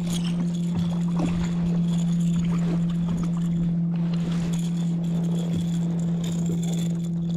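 A steady low hum, with light water sounds and a few small splashes and knocks as a hooked blue catfish thrashes at the surface beside a kayak.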